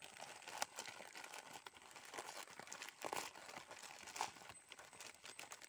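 White plastic courier mailer bag being crinkled and torn open by hand: irregular crackling with scattered sharp rips, a few louder ones about half a second, three and four seconds in.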